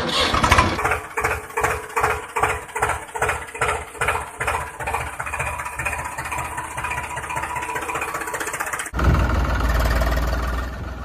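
Engine sound effect: an engine starting and running with a chugging beat of about two to three pulses a second, which evens out into a faster, steady run about six seconds in. About nine seconds in it switches abruptly to a louder, deeper engine sound.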